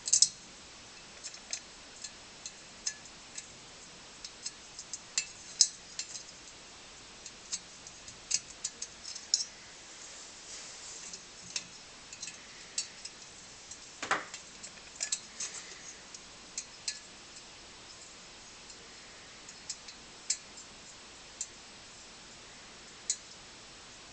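Irregular light clicks and clinks of small metal parts being handled and set down, with one fuller knock about halfway through: small brass blow torch parts being worked on during reassembly.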